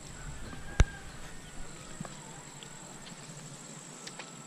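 A single sharp click about a second in, with two fainter clicks around two and four seconds in, over a faint steady high-pitched hum.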